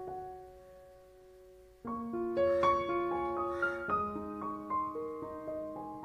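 Background piano music: a phrase dies away to a brief lull, then a new run of notes starts sharply just before two seconds in.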